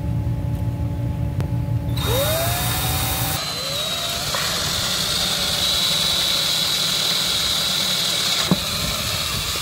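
Cordless drill running with a small pilot bit, boring through an RV wall. A low steady drone gives way, after about two seconds, to the motor speeding up with a rising whine, then a high steady whine as it cuts, and a couple of clicks near the end.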